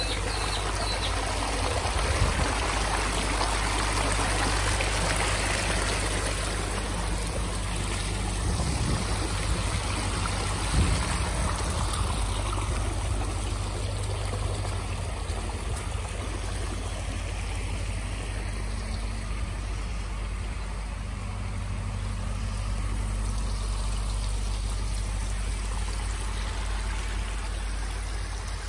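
Water trickling and splashing down small rock cascades of a garden pond stream, over a steady low rumble.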